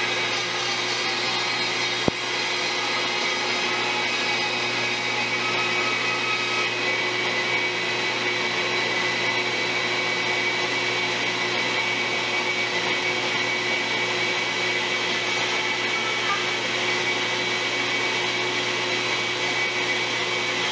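King bandsaw running together with the vacuum on its dust-collection hose: a steady whining drone that barely changes. A single sharp click about two seconds in.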